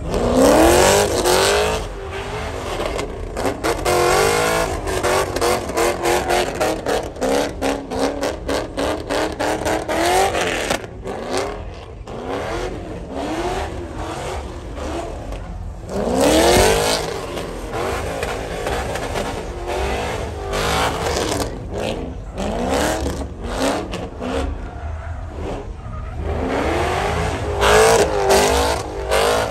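Chevrolet Corvette's V8 revving hard in a burnout and doughnuts, its rear tyres spinning on the asphalt. The engine note sweeps up again and again, strongest about a second in, around sixteen seconds and near the end, with a long stretch of fast, choppy pulsing in between.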